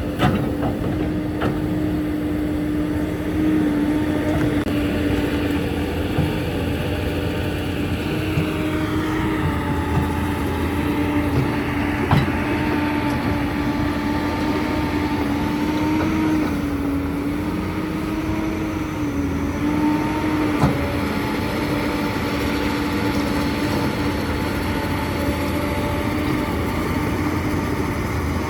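Excavator's diesel engine and hydraulics running steadily under load, the pitch wavering slightly as it works, with a few sharp knocks, about three, spread through it.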